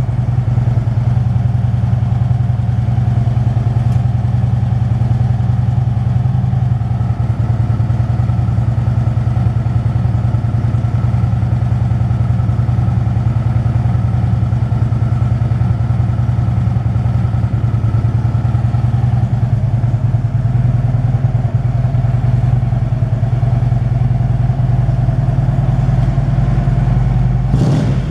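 2010 Harley-Davidson Ultra Limited's air-cooled Twin Cam 103 V-twin idling steadily, with a short knock near the end.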